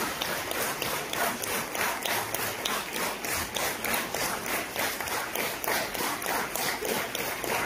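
Audience applauding, the crowd clapping together in a steady rhythm of about three claps a second.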